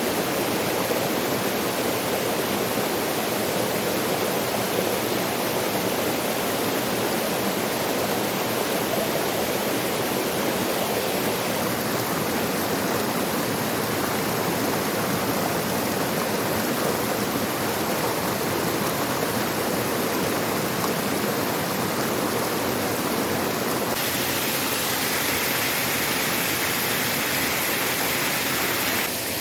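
A waterfall with its stream, the water rushing steadily. Its tone changes abruptly twice, about twelve and twenty-four seconds in.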